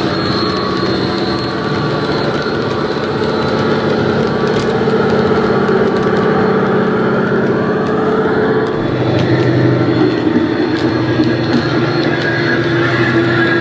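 Sound-decoder recording of a Paxman Valenta engine in an HST power car, played loud through a model train's Loksound 4 decoder and EM2 speakers. The engine drones steadily with a high whistle above it, and the low engine note changes about two-thirds of the way through. A few faint clicks sound over it.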